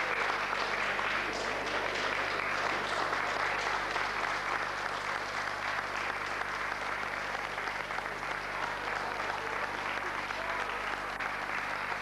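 An audience applauding steadily: sustained clapping from many hands.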